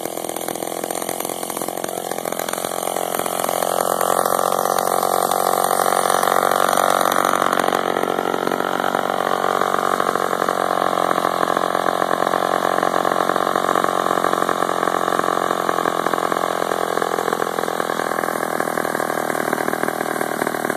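Ram Tools Deluxe RC-18D chainsaw's two-stroke engine idling steadily after a cut.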